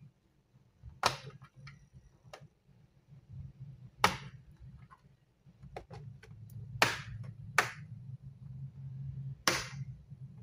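Plastic snap clips of a laptop's bottom cover popping loose one after another as a pry tool works around the edge: about seven sharp clicks at uneven intervals, over a low steady hum.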